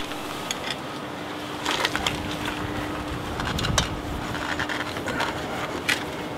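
Scattered clicks and knocks of hands and metal parts being handled at a MerCruiser sterndrive's lower unit and propeller, over a faint steady hum.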